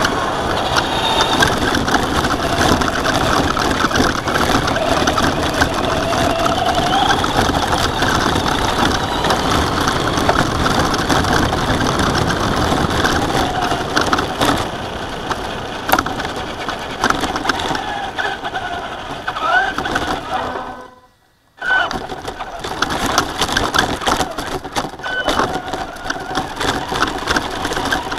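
Onboard sound of a Traxxas Slash radio-controlled truck driving: the motor and drivetrain whine rising and falling with the throttle over constant rattling and tyre noise on asphalt and then on dirt and leaves. The sound cuts out almost completely for about half a second two-thirds of the way through.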